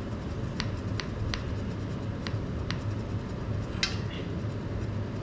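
A spoon tapping lightly to knock MS (Murashige and Skoog) tissue-culture medium powder off into the mix: a handful of small sharp clicks at uneven intervals, then a louder scraping knock nearly four seconds in, over a steady low hum.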